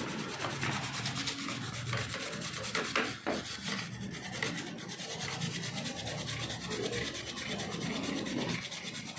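Toothbrush scrubbing a petrol-wet laptop motherboard, a steady run of quick bristle strokes, to clear off the corrosion left by spilled liquid. A couple of light knocks come about three seconds in.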